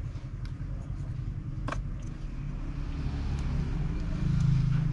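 Low, steady background rumble, with light clicks and ticks from wires and a plastic connector being handled. The sharpest click comes about a third of the way in.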